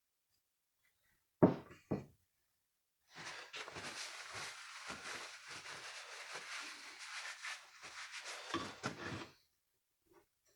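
Hands working on chainsaw crankcase parts on a workbench: two sharp knocks about a second and a half in, then about six seconds of rubbing and scraping with small clicks.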